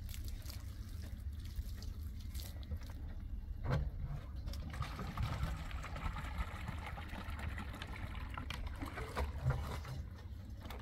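Water trickling and splashing from a plastic watering can as it wets a concrete-block wall and is refilled, with a single knock about four seconds in, over a steady low rumble.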